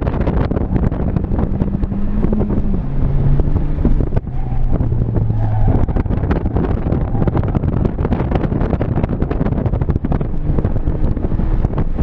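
Inside the cabin of a 2016 Ford Fiesta ST driven hard through an autocross course: its 1.6-litre turbocharged four-cylinder engine pulling under load, with heavy road and wind noise. The engine note drops in pitch a couple of seconds in, holds lower until about halfway, then is mostly buried in the road and wind noise.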